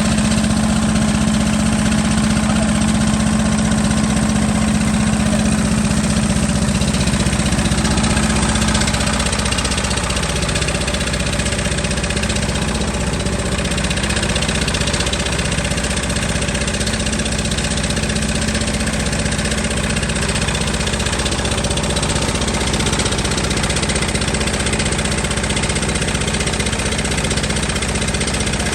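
Engine running steadily at a constant speed, becoming slightly quieter about nine seconds in.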